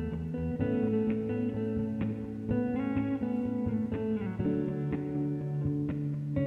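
Background music: a guitar loop cover, plucked and strummed guitar notes over a bass line.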